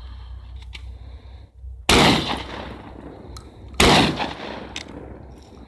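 Two shotgun shots about two seconds apart, each loud and sudden with a trailing echo.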